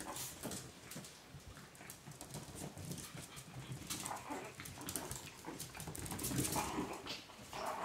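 Chihuahua puppies play-fighting on a tile floor: a few short puppy cries among quick clicks and taps of small claws and paws on the tiles.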